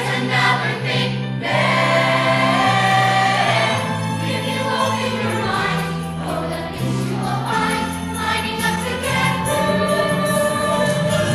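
A large chorus singing a musical-theatre number over instrumental accompaniment, with a steady bass line whose notes change every second or two.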